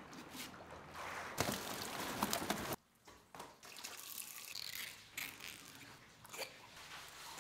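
Water sounds across two cut-together shots. The first is a steady rush with a few clicks that stops abruptly a little under three seconds in. The second is a tap stream running over a tub of cleaned trout, with drips and small knocks.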